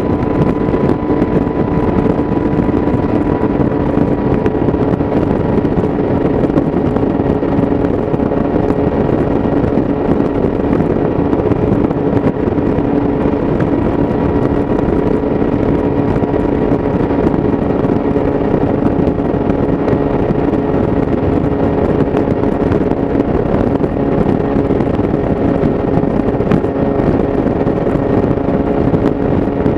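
Yamaha YZF-R6 inline-four engine through an Akrapovic exhaust, held at a steady high rpm while cruising at constant speed. The engine note does not rise or fall, over a steady rush of wind and road noise.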